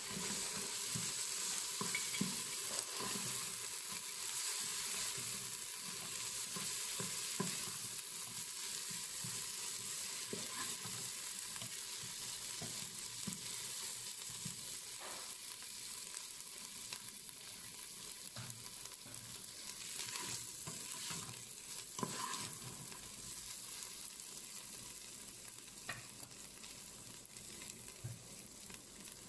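Sliced onions, green chillies and ginger-garlic paste sizzling in hot oil in a Noxxa cooker's non-stick pot, stirred with a wooden spoon that scrapes and knocks against the pot now and then. The sizzle eases slightly toward the end.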